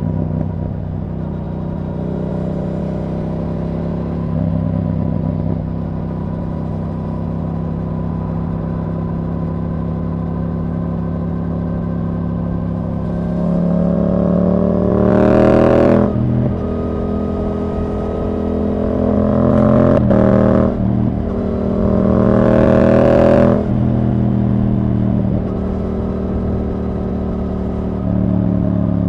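Yamaha R7's 689 cc parallel-twin through a Yoshimura R77 exhaust, running steadily at low revs for the first half. It then pulls hard as the revs climb in two or three surges with sharp breaks between them, before easing back to a steady low run near the end.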